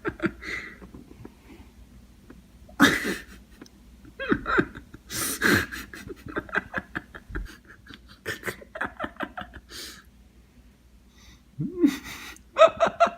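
A person laughing in short repeated bursts, with breaths and brief voice sounds in between.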